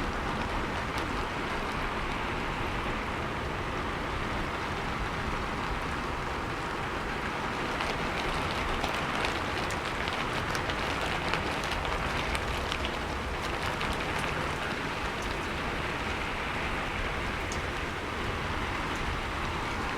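Steady rain falling, a continuous hiss with scattered sharp ticks of individual drops striking.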